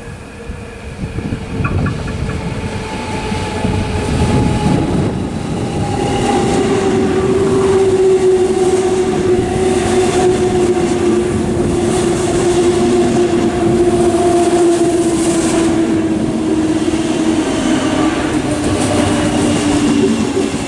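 S-Bahn class 420 electric multiple unit passing close on the line, its traction motor whine falling slowly and steadily in pitch over the rumble of its wheels on the rails. It grows louder over the first few seconds and then holds.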